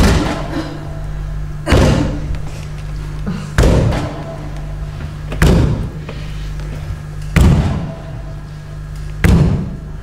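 Six loud thuds, evenly spaced just under two seconds apart, each with a short ring after it, over a steady low hum.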